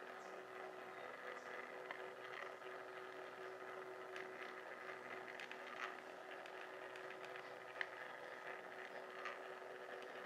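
Faint, steady hum of a small electric motor with a few light ticks: a motorized display turntable slowly rotating a figure.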